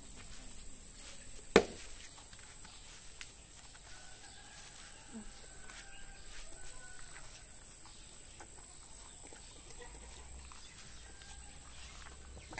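A dog being fed at a plate, making faint eating sounds over a steady high hum. One sharp click about one and a half seconds in is the loudest sound.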